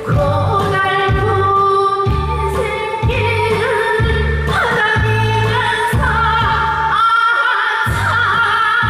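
A woman singing through a microphone with vibrato over amplified accompanying music with a steady bass beat.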